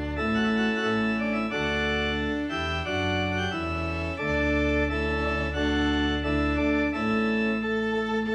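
Organ playing processional music: sustained full chords that change every second or so.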